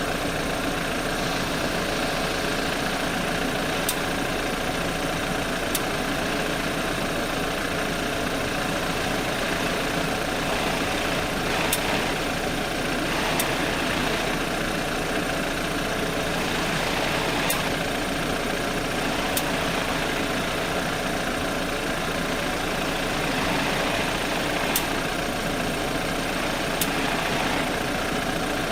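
BMW F10 running steadily, with eight sharp ticks in four pairs, each pair about two seconds apart and the pairs recurring every six to seven seconds. The ticks are the right front wheel's ticking that comes when the steering is turned to the right.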